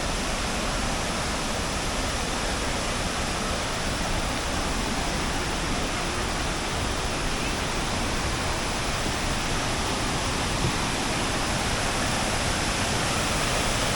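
Steady, even rush of water pouring down the YS Falls cascades.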